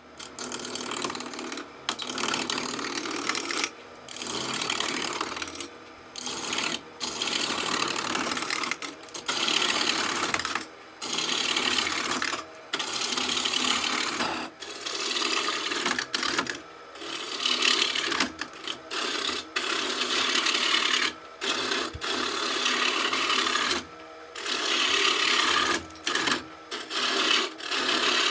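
Gouge cutting a spinning cherry blank on a wood lathe, roughing it down to a cylinder: a rasping cutting noise in passes of a second or two, broken by short gaps.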